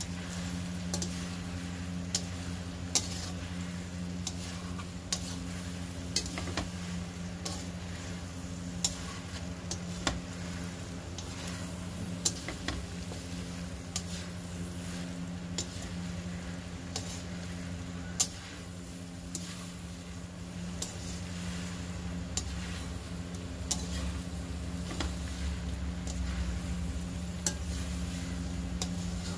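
Noodles being stir-fried in a wok: a utensil scrapes and clicks against the pan at irregular moments over a light sizzle, with a steady low hum underneath.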